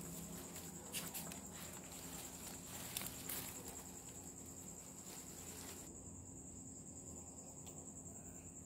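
Faint, steady, high-pitched trill of night insects, with lime-tree leaves rustling and a few small clicks as limes are picked by hand; the rustling dies away near the end.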